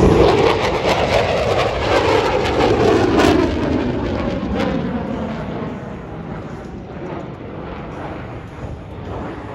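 A USAF Thunderbirds F-16 jet passing overhead: a loud rushing jet roar that sinks slightly in pitch. It fades from about four seconds in as the jet pulls away.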